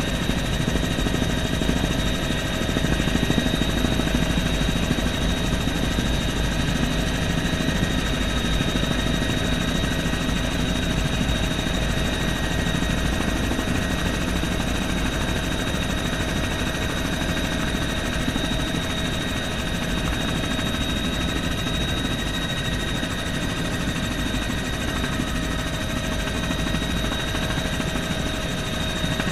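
Bell helicopter in flight, heard from inside the cabin: a steady rotor and engine noise with a constant high whine running through it.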